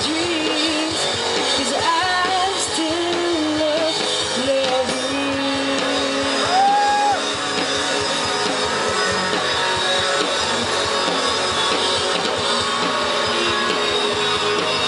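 Live rock band playing: electric guitar and drum kit with a woman singing over them, her voice most prominent in the first half.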